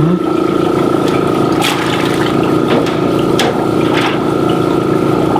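Small air compressor humming steadily as it bubbles air through a sink of soapy egg-wash water, with a few sharp clicks along the way.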